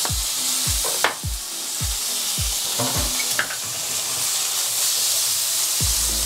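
Broccolini frying in butter in a hot pan: a steady sizzle, with a sharp tap about a second in and lighter clicks around three and a half seconds in.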